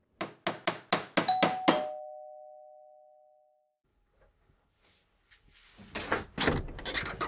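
Rapid knocking on a door, about seven knocks in under two seconds, with a two-note ding-dong doorbell chime, higher note then lower, ringing out over the last knocks and fading over about two seconds. Near the end, a run of clatters as the door is opened.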